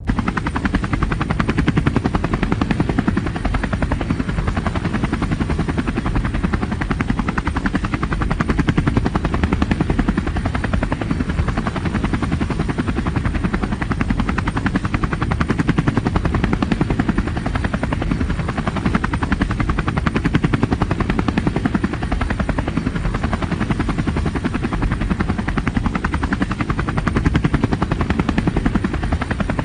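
Helicopter in flight, its rotor and engines running steadily with a fast, even blade chop over a deep low drone.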